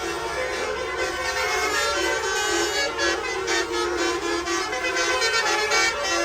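Indonesian bus 'telolet' multi-tone air horns playing tune-like note sequences, several pitched tones stepping from note to note and overlapping, over a steady low hum.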